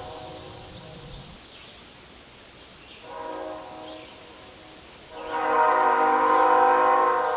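Raised-letter Nathan Airchime K5HL five-chime locomotive air horn. The tail of a blast fades out at the start, then a short blast sounds about three seconds in, and a longer blast starts about five seconds in and holds its chord to the end.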